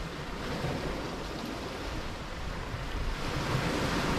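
Small sea waves washing steadily onto the foreshore, under a low rumble of wind on the microphone.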